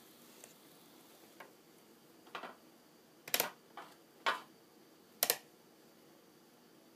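A handful of sharp clicks and taps, about six, the three loudest spaced roughly a second apart near the middle, over a faint steady background.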